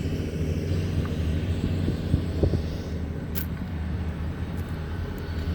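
Steady low rumble of a car or truck being driven slowly, with a single faint click about three and a half seconds in.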